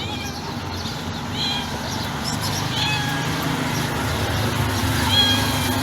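Domestic cat giving a few short, soft, high-pitched meows, spaced a second or more apart, over a steady low background hum.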